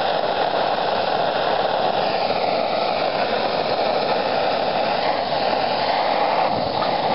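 Handheld gas torch flame hissing steadily as it burns the enamel coating off the inside of a new steel paint-can lid.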